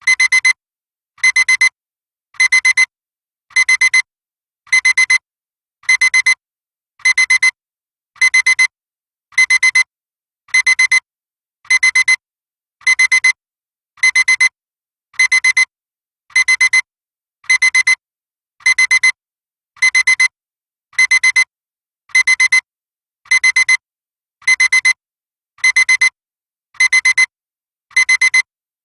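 Electronic alarm clock beeping: a high-pitched beep played in short quick clusters that repeat steadily a little under once a second.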